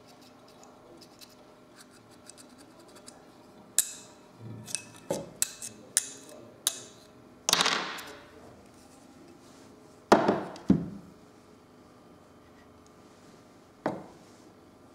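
Metal parts of a home-built pancake electric motor being handled: a run of sharp clicks and clanks, some ringing briefly, with the loudest in the middle and one last knock near the end.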